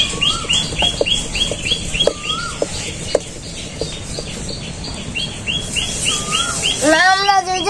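Small birds chirping, a rapid run of short high chirps at about four a second, with a louder rising-and-falling call three times. Faint soft knocks of a wooden rolling pin on an aluminium plate as roti dough is rolled out, and a voice calls out near the end.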